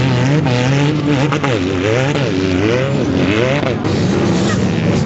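Several off-road vehicle engines at a dune drag, revving up and down in quick throttle blips over a steadier, lower engine note.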